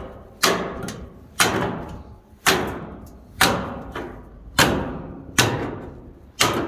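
Hammer blows on a neodymium magnet stuck fast to steel, knocking it loose: seven strikes about a second apart, each with a short ringing tail.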